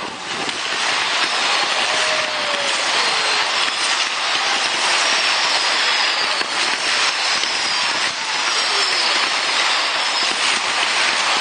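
Firework display: a dense, steady crackling hiss from a barrage of fireworks, with several whistling shells gliding in pitch over it.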